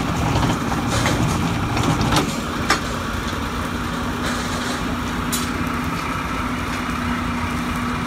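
Electric rebar bending machine running with a steady motor hum, and a few sharp metallic clicks. A heavier rumble eases about two seconds in, leaving the hum alone.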